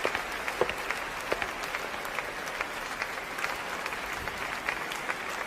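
Audience applauding: a steady wash of clapping with many individual claps standing out.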